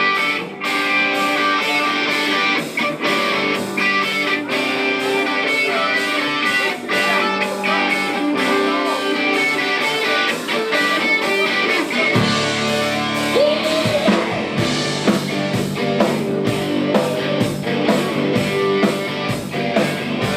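Guitar-led rock music with a steady beat; a low bass line comes in about two-thirds of the way through.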